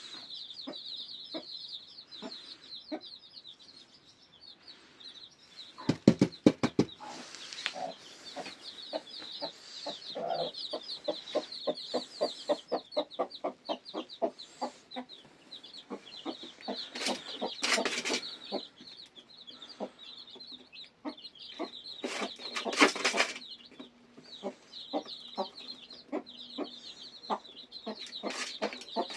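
Newly hatched chicks peeping steadily in high, rapid chirps, over runs of low, quick clucking from a hen. A few short loud bursts break in, about a fifth of the way through, a little past halfway, and about three-quarters of the way through.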